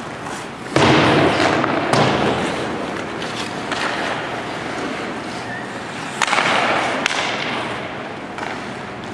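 Ice hockey practice sounds: skates scraping on the ice and several sharp knocks from sticks and pucks, each trailing off in the rink's echo. The loudest knock comes about a second in, with others near two seconds and around six to seven seconds.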